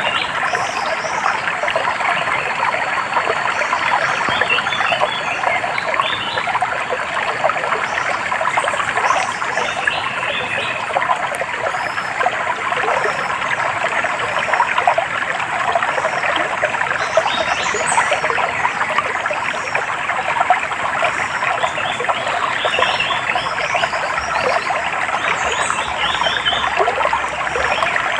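Water trickling and splashing steadily in a small stream, with birds chirping in short clusters every few seconds over it.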